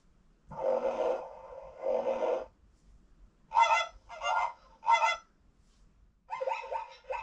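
Recorded animal sound effects played through an electronic toy book's small speaker: two longer calls, then three short calls in quick succession, then a faster run of short calls near the end.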